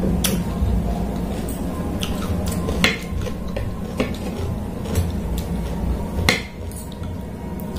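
Metal spoon and fork clinking and scraping against a plate while food is cut and scooped, with scattered sharp clicks, the loudest about three and six seconds in.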